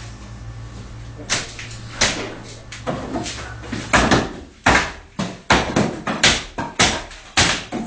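A shelf being yanked and shoved by hand, knocking and banging again and again. The knocks come a few at a time at first, then quicker, about two to three a second, in the second half.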